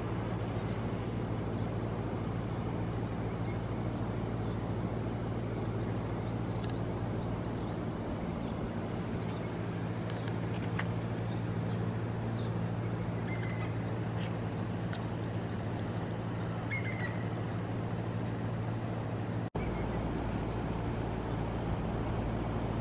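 Outdoor mountain-valley ambience: a steady low hum with a few faint, short bird chirps in the middle. The sound drops out for an instant about three-quarters of the way through.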